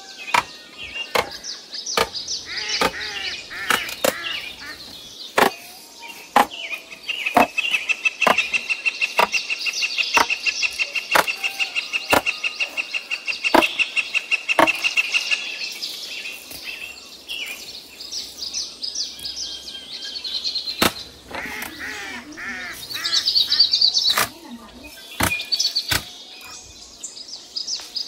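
Sharp knocks at irregular intervals, like a tool striking while material is worked, with birds chirping throughout. A steady, rapid trilling chirp runs from about a quarter of the way in to just past the middle.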